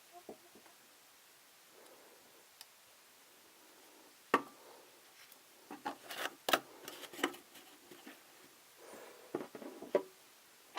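Small plastic toy parts being handled and set down: scattered light clicks and taps, with a sharp click about four seconds in and a cluster of taps a little later.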